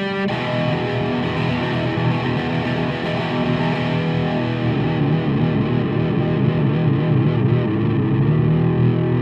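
Outro music: distorted electric guitar with effects, rock style.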